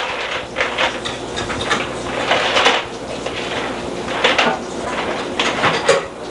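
A baby handling a stiff picture book and plastic toys on a high-chair tray: irregular knocks, clatters and rustles.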